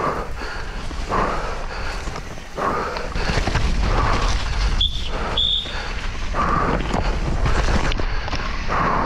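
Downhill mountain bike descending a muddy track at speed, heard from the on-board camera: tyres churning through mud, constant clatter of the bike over bumps and wind rumble on the microphone, with the rider's heavy breathing coming through about once a second. Two short high squeaks come about five seconds in.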